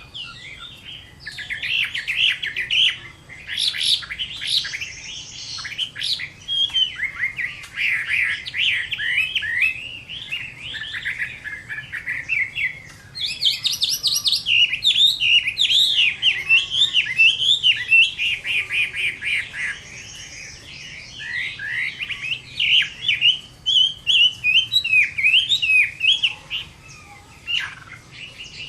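Chinese hwamei (Vietnamese họa mi) singing in full combative song: a loud, continuous stream of varied whistles, slurred phrases and rapid trills, with a fast run of repeated notes about halfway through and only brief pauses.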